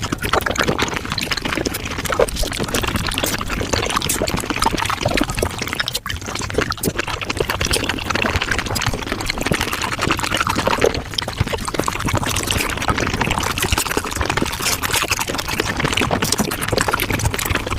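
Mukbang eating sounds sped up about five times: raw oysters being slurped and chewed, a dense unbroken run of wet clicks and smacks. There is a brief drop-out about six seconds in, where one clip cuts to the next.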